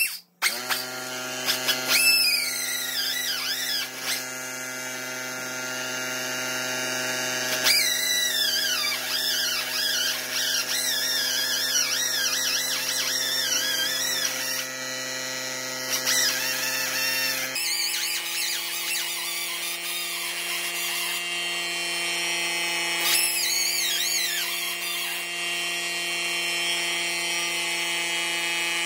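Background music: sustained chords with a wavering melody line over them, the chords changing about two-thirds of the way through.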